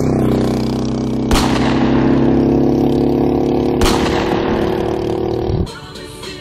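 Intro sound effect: a loud, steady low drone with two sharp booms about two and a half seconds apart, cutting off suddenly near the end.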